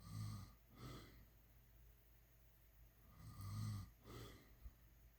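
Snoring: two low snores about three seconds apart, each followed by a shorter, softer sound.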